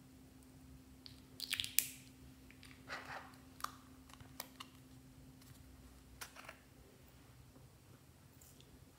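Small plastic pots of glitter and sprinkle toppings being handled and tipped over a tray of slime: a scatter of light clicks, taps and short crackly rustles, busiest in the first half.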